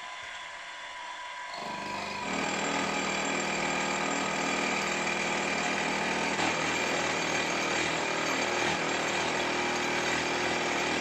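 Milling machine end mill side-cutting a cylinder top casting to make its side parallel. The spindle runs quietly at first, and the cut comes in about two seconds in as a steady metal-cutting noise with several ringing tones.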